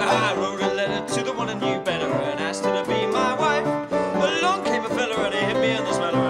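Upright piano in a ragtime stride style and a five-string banjo playing a lively folk tune together, with a man's voice singing along over them.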